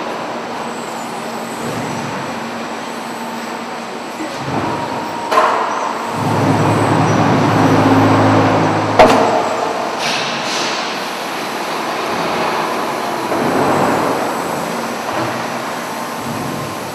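Automated board-handling line of a concrete block plant running: roller conveyors moving stacks of wooden production boards with a steady mechanical rumble. A motor hum swells about six to nine seconds in, and sharp metal clanks come about five and nine seconds in.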